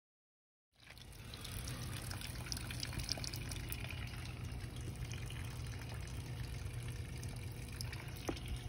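Water running from a garden hose into a bucket of live crawfish, a steady flow starting about a second in, with small clicks and splashes through it.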